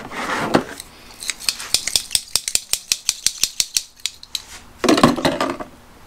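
A quick run of sharp plastic clicks, about five or six a second, as the plastic jug of rust remover is handled at its cap, followed by a short rustling burst near the end.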